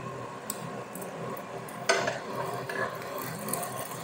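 Beef burger patties sizzling on a metal griddle tray, with a knife scraping against the tray and one sharp clink about two seconds in.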